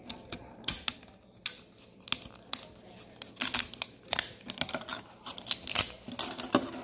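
Irregular clicking, snapping and crackling of 3D-printed plastic as support material is pried and broken away from the printed spool-adapter parts by hand, in quick clusters of sharp clicks.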